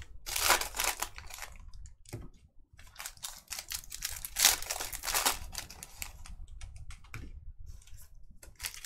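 Trading cards and foil pack wrappers being handled: irregular short rustles and light clicks of card stock sliding and being flipped over.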